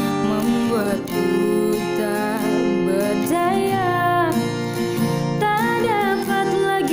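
Acoustic guitar strummed, with a voice singing a held, sliding melody over it.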